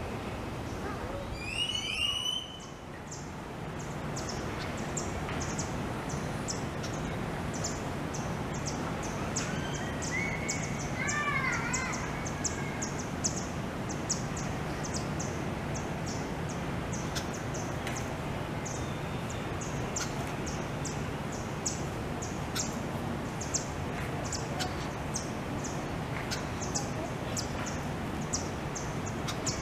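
Birds calling outdoors: a quick descending whistled call about two seconds in and a group of chirps around ten seconds in, over a steady background hiss with a high ticking repeated a few times a second.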